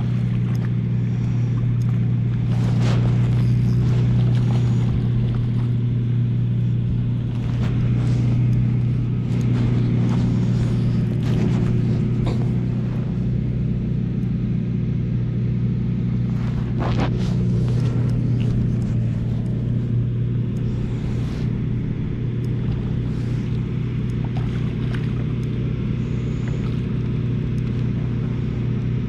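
Steady low outdoor rumble with a strong even hum, broken by a few sharp clicks and knocks from handling of the fishing gear close to the microphone.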